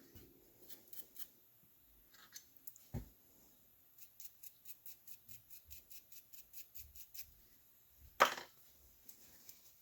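Quiet workshop handling of small parts: a few light clicks, then an even run of quick ticks, about six a second for some three seconds, and one sharper knock near the end.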